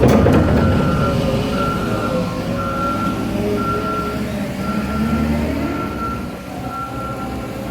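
Diesel engine of a heavy vehicle running and revving, with its reversing alarm beeping about once a second.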